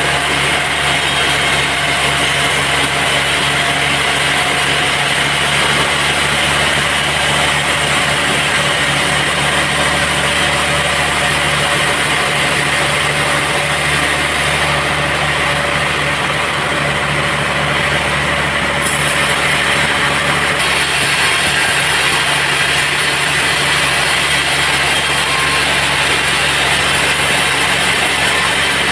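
Sawmill machinery running steadily, a continuous loud mechanical hum with several steady tones.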